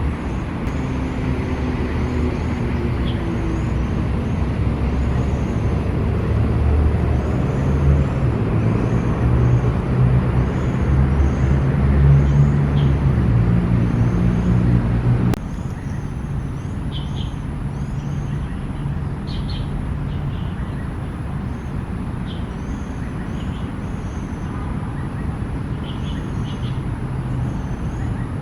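Steady urban road-traffic rumble that swells as a heavy vehicle's engine passes in the first half, then drops abruptly about halfway through. Faint short high chirps recur over it.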